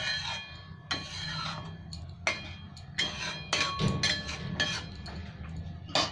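A spatula knocking and scraping against a thin metal kadai while a curry gravy is stirred: about seven sharp taps at uneven intervals, several leaving a short metallic ring, over a steady low hum.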